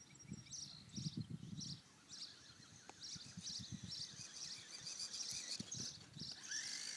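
Rural outdoor ambience: short high chirps repeating about twice a second, over irregular low rumbles. A wavering higher whine sets in near the end.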